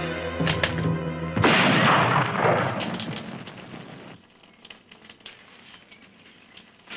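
Dramatic orchestral music, cut off about one and a half seconds in by a loud crash that dies away over a couple of seconds: a man tripping on his loose boot sole and falling onto a wooden floor.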